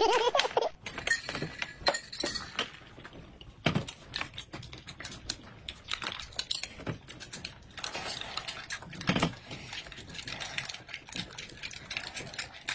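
Metal spoons clinking and scraping against glass cups and dishes during a meal, in scattered short clicks and taps.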